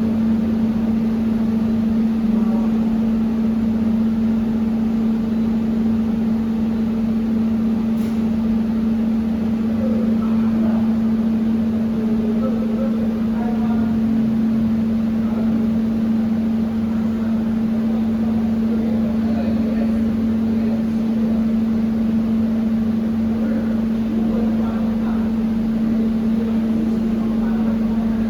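Steady machine hum holding one constant low pitch, from laser welding equipment, with faint voices in the background and a single click about eight seconds in.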